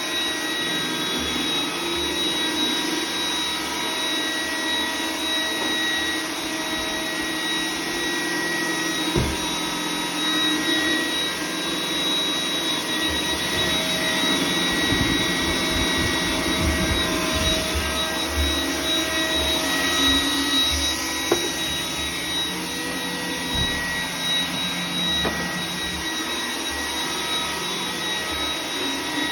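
iRobot Roomba 980 robot vacuum cleaning, its motor and brushes running with a steady high whine and a shifting rumble as it moves over the floor. A couple of sharp knocks break in, about nine seconds in and again around twenty-one seconds in.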